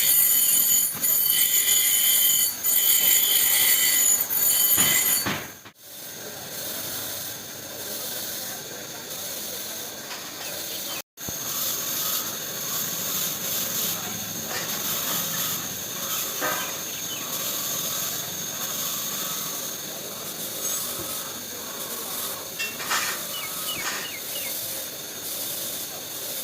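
Loud hissing with a whistle for about five seconds, then after a break a quieter steady hiss, with a few scrapes and clicks near the end.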